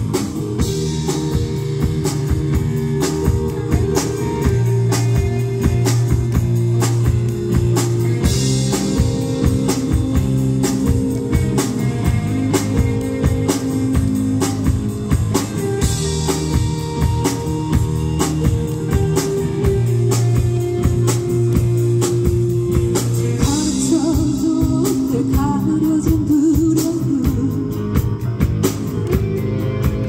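Live rock band playing through a PA: a drum kit keeping a steady beat under electric guitars, bass guitar and keyboard, with a woman singing into a microphone.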